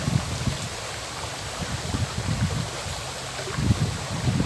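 Shallow river flowing, a steady rushing of water. Irregular low rumbles of wind buffet the microphone throughout, with the strongest gusts just after the start and near the end.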